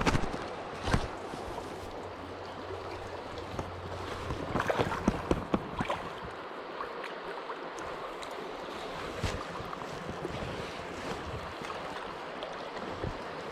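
River water running with a steady rush, with a few short sharp splashes or knocks standing out about a second in, around the middle, and once more later on.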